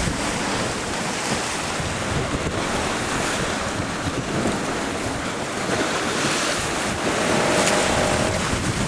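Wind on the microphone over the steady rush and splash of sea water along a sailing boat's hull under way.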